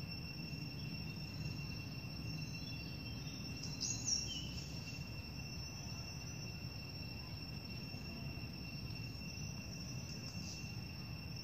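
Steady high insect drone at two pitches, with a brief high chirp about four seconds in.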